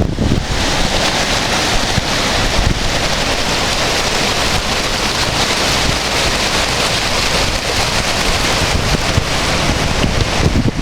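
Flooded creek rushing, a steady loud hiss of fast water, with wind buffeting the microphone in a low rumble.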